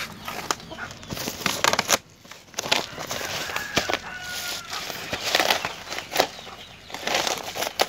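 Woven plastic rice sacks being handled, giving a run of sharp, irregular crinkling rustles, with a faint drawn-out call about halfway through.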